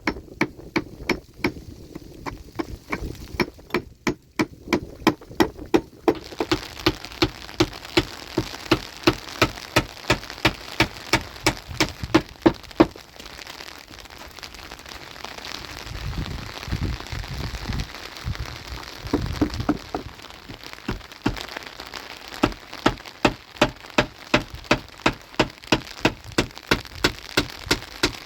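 Footsteps crunching through snow at a steady pace, about two steps a second, with a few seconds' pause midway filled by low wind noise on the microphone.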